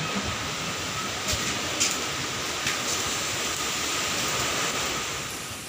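Strong dust-storm wind blowing steadily as a dense rushing noise, with a few brief sharp clicks or rattles in the first three seconds.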